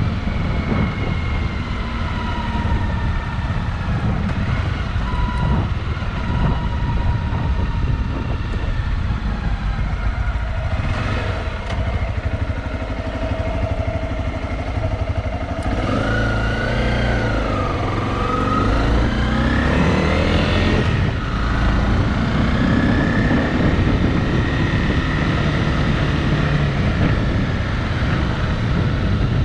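Motorcycle engine running while riding, its pitch rising and falling with the throttle over a steady low rumble of wind and road noise.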